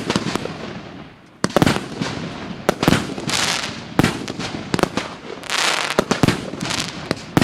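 Consumer firework battery (cake) firing shot after shot: a sharp bang every second or so, each followed by about a second of hissing as the shell bursts. The first second is only the fading hiss of a burst.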